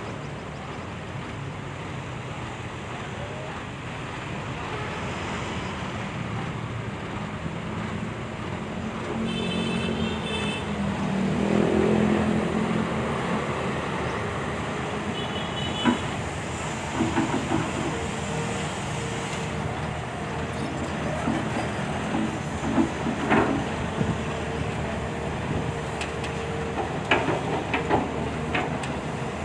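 Volvo excavator's diesel engine running steadily, swelling briefly about twelve seconds in. Scattered sharp knocks and clanks come in the latter half.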